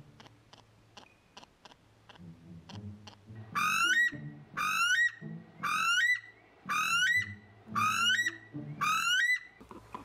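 A weka calling: six loud, shrill whistled calls, each rising in pitch, about one a second, starting about three and a half seconds in. This is the weka's repeated 'coo-eet' call.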